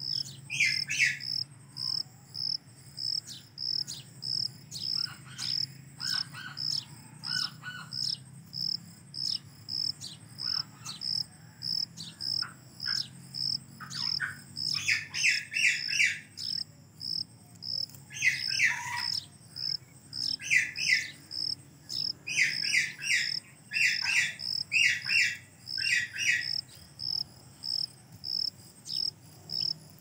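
An insect chirps in a steady high-pitched pulse about two times a second, while birds call in short runs of quick chirps now and then, busiest in the second half.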